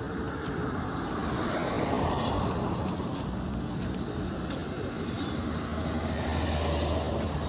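Road traffic: vehicle engines and tyre noise, swelling about two seconds in and again near the end.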